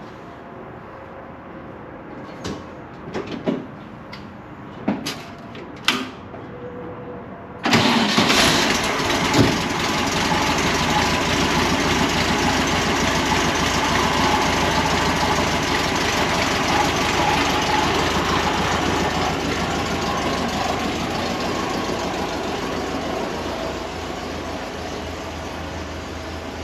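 A few clicks and knocks, then about eight seconds in the 1964 VW Beetle's air-cooled flat-four engine fires and keeps running steadily, getting slightly quieter near the end. It starts and runs now that a gummed-up part in its fuel path has been cleaned.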